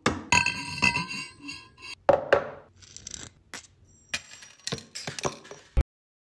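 Claw hammer striking a nail in a cardboard box: a series of sharp metallic clinks with short ringing, the loudest in the first two and a half seconds, lighter taps after. The sound cuts off abruptly just before the end.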